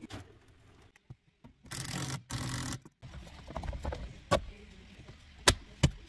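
Plastic clicks and knocks of steering-column trim and connectors being fitted back under a car's dashboard: two short rustling scrapes about two seconds in, then several sharp clicks in the second half.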